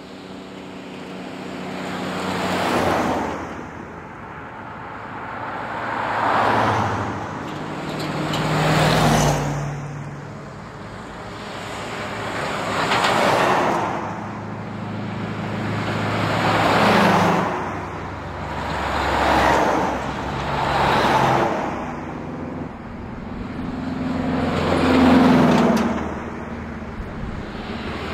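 A convoy of vintage trucks driving past one after another on a highway, about eight passes in a row, each swelling and fading with engine and tyre noise.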